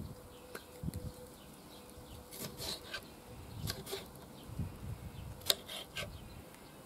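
Kitchen knife cutting bell pepper on a wooden cutting board: a scatter of light taps of the blade on the board, the sharpest about five and a half seconds in.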